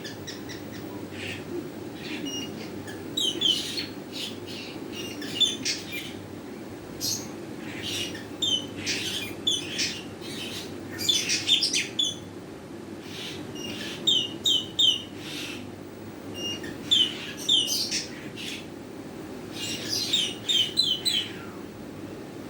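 Nuri tanau (blue-rumped parrot) calling: short, high-pitched squawks in quick runs of two to four, repeated every second or two, over a steady low hum.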